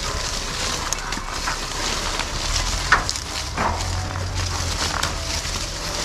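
Apple tree leaves and branches rustling and crackling as Gala apples are picked by hand, with many small snaps and clicks.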